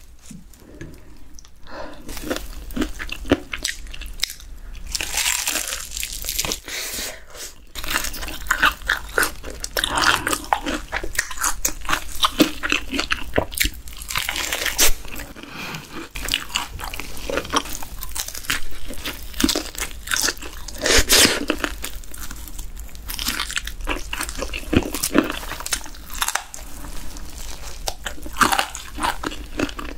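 Close-miked bites and chewing of crispy fried chicken coated in cheese powder, with repeated loud crunches of the crust between quieter chewing.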